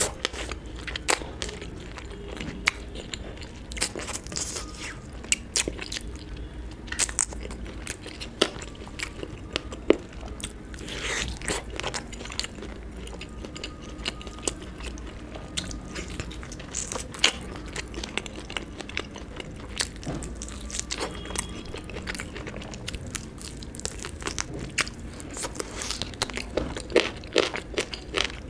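A person eating close to the microphone: chewing with frequent sharp, irregular bites, smacks and crunches, from a meal of roti, butter chicken, mutton curry and chicken fried rice with green chillies.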